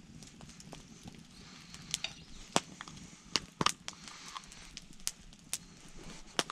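About a dozen irregular sharp clicks and light knocks, spread unevenly, over a faint steady low hum.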